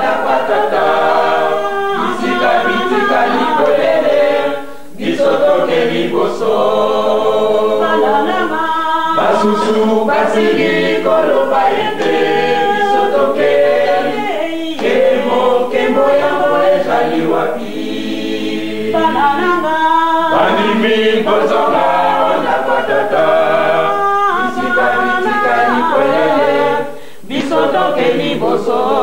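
A church choir singing a cappella, with two brief pauses between phrases, about five seconds in and near the end. The sound comes from an old cassette tape, dull with no high treble.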